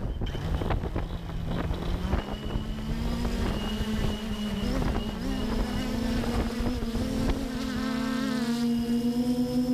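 Electric motors and propellers of a VTOL drone spinning up for takeoff: a buzzing whose pitch climbs steadily for most of the time, then levels off and holds with a fast pulsing.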